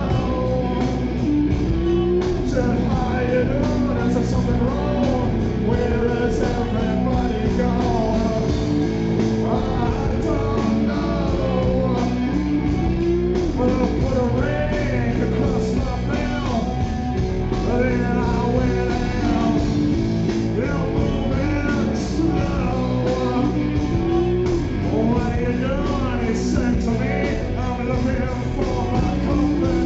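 Live rock band playing loudly, with a man singing into a handheld microphone, heard from within the audience.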